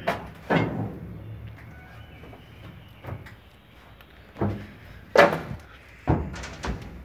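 Several irregular knocks and thumps, the loudest about five seconds in, as someone moves about a steam locomotive's cab.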